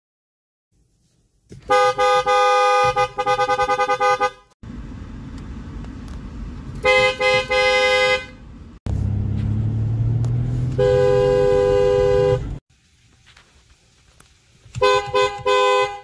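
Car horns of several different cars sounded in turn from the driver's seat, including a Toyota, a Porsche and a Mercedes-Benz. Each is a two-note horn, given long held blasts and quick repeated taps, with a low engine rumble between some of them.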